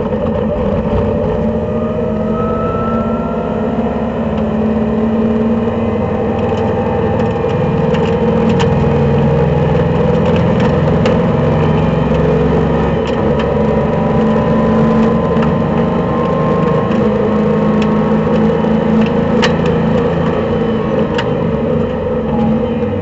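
Race car engine heard from inside the cockpit, pulling hard at full throttle out of a corner and up a long straight, its pitch climbing and dropping back at each upshift. Occasional sharp clicks and rattles from the car's body.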